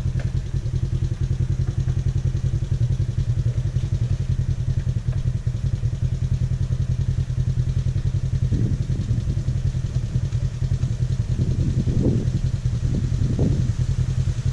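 Polaris RZR side-by-side's engine running steadily at low revs as it crawls through a flooded mud trail, with a few short louder surges in the second half.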